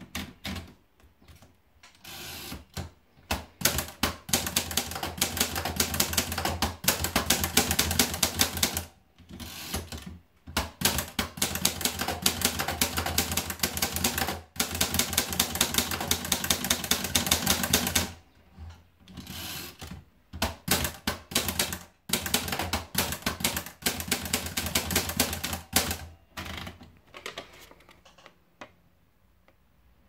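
Imperial portable manual typewriter being typed on: rapid key strikes in runs of several seconds, broken by short pauses between the lines. A few clicks at the start as the paper is wound in, and quiet near the end.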